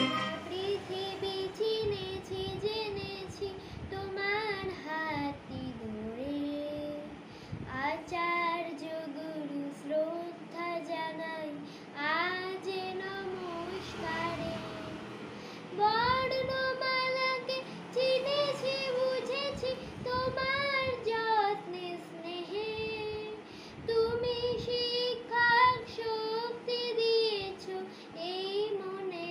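A young boy singing solo, a slow melody sung phrase by phrase with long held notes and short pauses between phrases.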